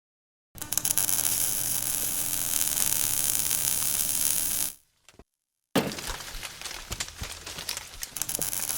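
Wire-feed (MIG) welding arc: a steady high sizzling hiss for about four seconds, a short stop, then a second run that crackles more roughly with frequent sharp pops.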